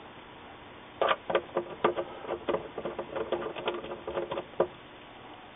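Quick, irregular clicking and rattling of a screwdriver and small screws, starting about a second in and stopping before the end.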